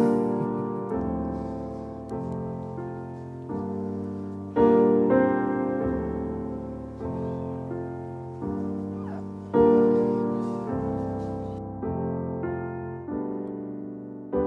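Background piano music: slow chords struck about once a second and left to ring and fade, with a louder chord every five seconds or so.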